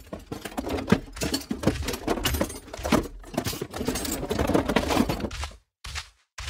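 Movement sound effects for a small ball-shaped toy character: a rapid, irregular rattling patter for about five and a half seconds, then separate short taps about every half second.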